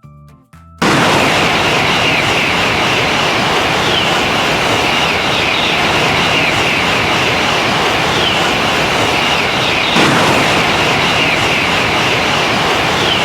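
A train passing at speed: a loud, steady rush of wheel and rail noise that cuts in suddenly about a second in.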